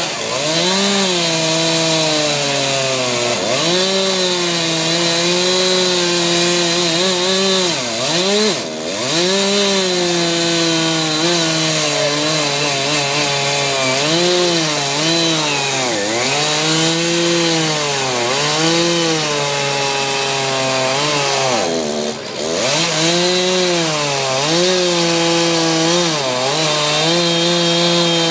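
Two-stroke chainsaw running at high revs while carving into a log. Its engine pitch repeatedly sags and recovers as the chain bites into the wood, and twice it briefly drops back.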